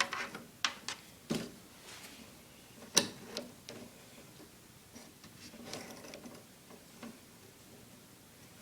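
Scattered clicks and knocks from handling a paramotor cage's rings, hook and netting, the sharpest about three seconds in, with light rustling in between.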